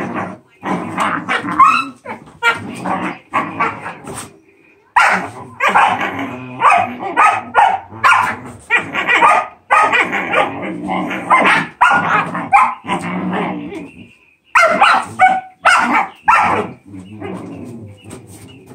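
Two giant schnauzer puppies play-fighting, with a fast run of short barks, yips and whines, broken by brief lulls about four seconds in and again near fourteen seconds.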